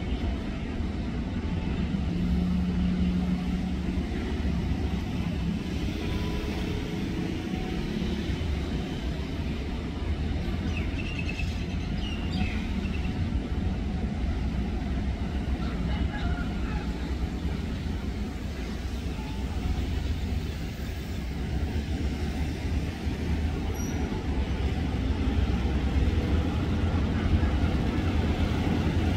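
Diesel-electric locomotive engine running, a steady low rumble, with a brief steady tone about two seconds in.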